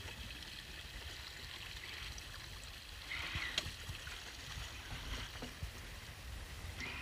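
Water washing and splashing against a small sailboat's hull at sea, with a low wind rumble on the microphone. A louder swash comes about three seconds in and another near the end.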